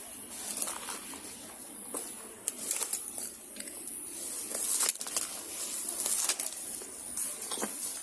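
Irregular crackling and rustling of dry leaves and brush, like footsteps pushing through undergrowth, with louder bursts in the middle. A faint steady high insect-like whine runs underneath.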